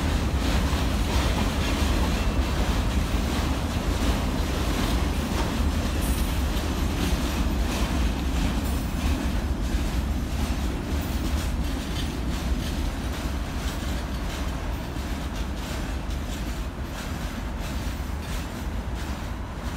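Freight train's covered hopper wagons rolling past on the track: a steady heavy rumble with wheels clicking over rail joints. It eases slightly toward the end as the cars move away.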